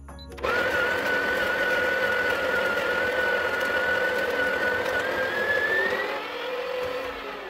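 Breville Barista Pro's built-in conical burr grinder grinding coffee into the portafilter: a steady motor whine over the sound of the burrs. The whine rises in pitch around five seconds in, then the grinder winds down and fades near the end.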